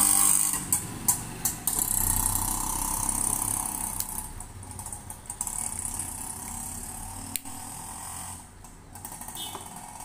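Scattered light clicks and taps as a faulty IFB washing machine door lock switch, one that no longer locks, is handled and prodded with a screwdriver. A steady low hum runs underneath.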